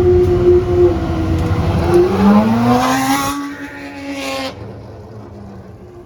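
Naturally aspirated V12 of a Pagani Huayra R Evo racing car at high revs under acceleration. About two seconds in, the pitch drops at an upshift and then climbs again. After about four and a half seconds the sound fades quickly as the car pulls away.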